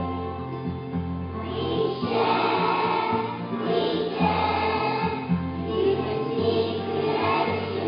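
A group of young children singing together over a recorded musical accompaniment with a steady bass line.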